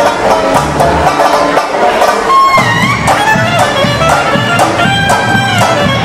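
Small hot-jazz band playing live: clarinets carry the melody, with a bent note near the middle, over plucked double bass, banjo and bass drum keeping a steady beat.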